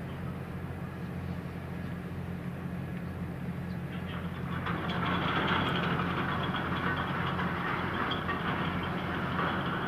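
Cargo ship's anchor chain running out through the hawse pipe: a dense metallic rattling that starts about halfway through and keeps going, over the steady hum of the ship's engine.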